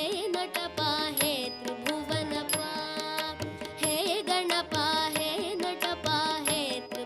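Carnatic-style Indian devotional music: an ornamented melody with gliding notes over regular drum strokes.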